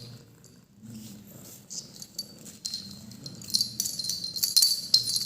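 Small bell on a pet cat's collar jingling in short shakes, now and then at first and then often in the second half, as the cat bites and tugs at the collar. Under it come soft, low breathing sounds from the cat.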